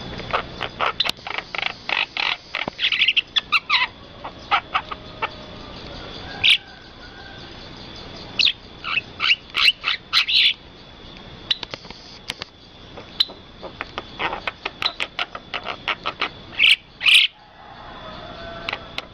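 Starling (jalak) calling in clusters of short, sharp chirps and whistles, with brief pauses between bursts, over a faint steady high tone.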